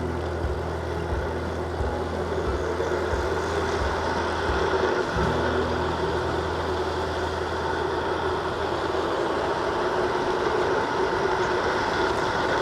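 Steady motor traffic passing on the road alongside a cyclist, a continuous rush of cars and trucks.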